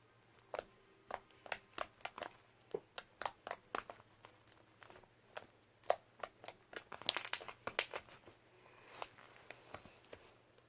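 Slime being squeezed and worked by hand, giving irregular sharp clicks and pops, a few a second, with a quick burst of them about seven seconds in.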